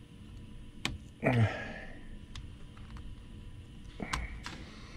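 A few sharp metallic clicks as a snap ring is worked onto the anvil of an electric ratchet with snap ring pliers; the ring is not yet fully seated. A short grunt falling in pitch comes about a second in and is the loudest sound.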